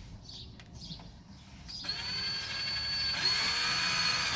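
Cordless drill-driver driving in the retaining screw of a euro-profile cylinder lock. The motor whines steadily for about two and a half seconds, starting about two seconds in, with a slight change in pitch partway through.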